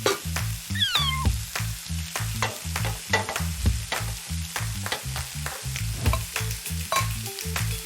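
Food sizzling and crackling in a frying pan, a cooking sound effect, with a single short falling cat meow about a second in. Background music plays underneath.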